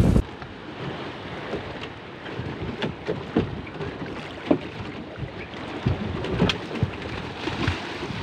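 Water splashing and slapping against the bow of a small boat moving through the water: a steady wash with irregular sharp splashes. A louder wind-blown rush cuts off suddenly right at the start.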